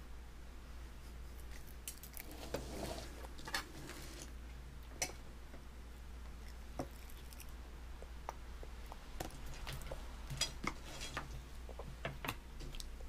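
A baby eating chips, with irregular small clicks and smacks from the mouth while chewing and light taps of hands and food on a plastic high-chair tray, over a low steady hum.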